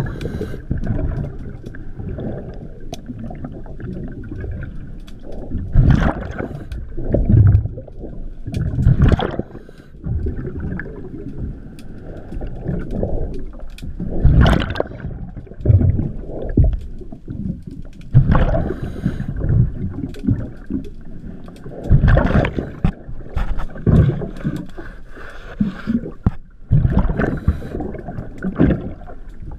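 Scuba diver breathing through a regulator underwater: loud bursts of exhaled bubbles gurgling past the camera every few seconds, over a steady underwater hum.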